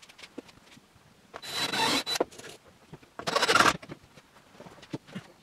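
Two rough rasping strokes against wood, the first about a second long and the second, shorter and louder, about two seconds in, with small clicks and knocks between them.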